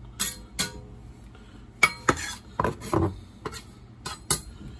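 Kitchen knife tapping against the rim of a cooking pot, a string of sharp clinks, some of them ringing briefly.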